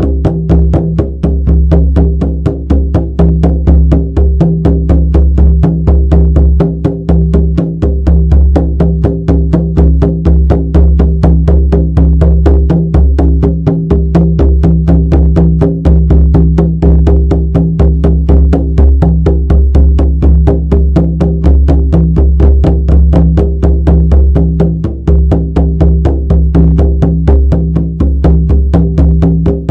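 Shamanic frame drum beaten in a steady, fast, even rhythm of about four strokes a second, each stroke ringing with a deep boom.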